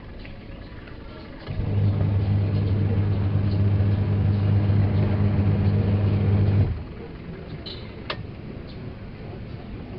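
A repaired washing machine motor switches on and runs for about five seconds with a steady low hum, then cuts off suddenly. A couple of sharp clicks follow.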